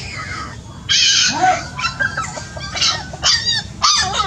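A puppy and a hen calling: a run of short, high-pitched cries and squawks, six or seven of them.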